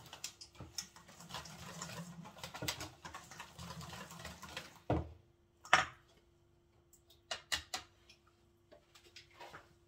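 Fork beating batter in a stainless steel bowl: a fast run of clinks and scrapes that stops about five seconds in. A knock and then a sharp, loud clink follow, and a few scattered clicks over a faint steady hum.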